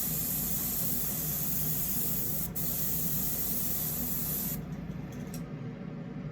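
Airbrush spraying thinned paint in light coats with a steady hiss, broken for an instant about two and a half seconds in. The trigger is released about four and a half seconds in, with one short puff after, over a steady low hum.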